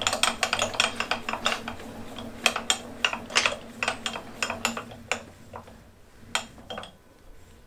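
Milling machine table being traversed to a new position: quick, irregular metallic clicks and rattles from the feed over a steady low hum. Both stop about seven seconds in.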